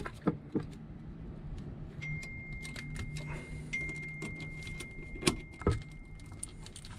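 Small metal hardware clinking and clicking as hands work on a stern-drive steering linkage, with scattered light knocks, the sharpest two about five and a half seconds in. A faint low hum and a thin high tone sit underneath through the middle.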